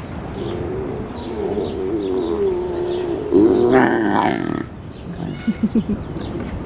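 Lions calling: a long, wavering, whine-like call, then a louder, noisier call about three and a half seconds in, followed by a few short low grunts.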